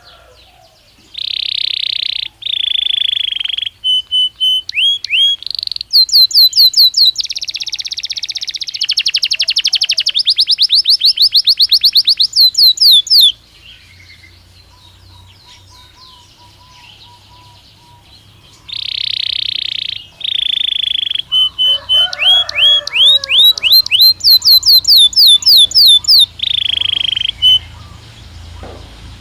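Belgian canary singing two long song phrases with a pause of several seconds between them. Each phrase opens with harsh buzzy notes and runs into rapid rolling trills of quick falling whistles, several a second.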